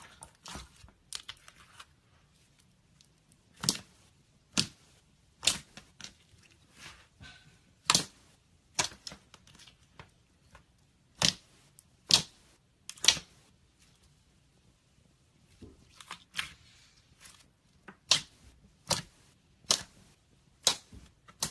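Clear slime being squeezed and poked, making a run of sharp, irregular pops and clicks about once a second, some much louder than others.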